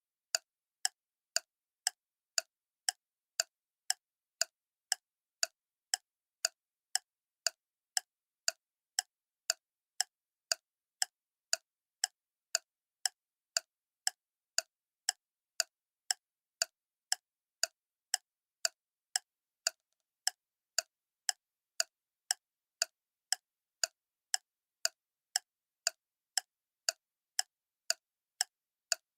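Clock ticking steadily, about two sharp ticks a second with silence between them.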